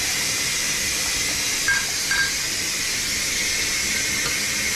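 Kitchen tap running in a steady hiss as hands are rinsed under the stream. Two short, faint high sounds come about two seconds in.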